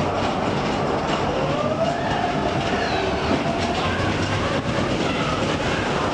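Steel roller coaster train running fast along its track, a steady loud rumble and clatter of wheels on rail, with squeals that rise and fall over it as the train banks and drops.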